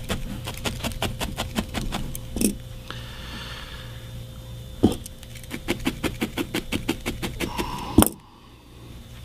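A felting needle stabbing repeatedly into wool, about six quick pokes a second, fastening a small rolled wool piece in place. The poking pauses for a few seconds in the middle with a couple of single knocks, then resumes, and ends on one sharper knock near the end.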